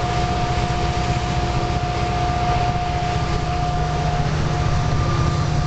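Diesel-electric freight locomotive working as a distributed power unit, heard from on board at speed: a steady engine drone and low rumble with a constant high whine over a rushing noise. The whine weakens a little about four seconds in.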